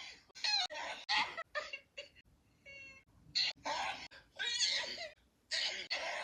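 A run of short, high-pitched vocal sounds, about ten in quick succession with brief gaps between them, their pitch bending up and down.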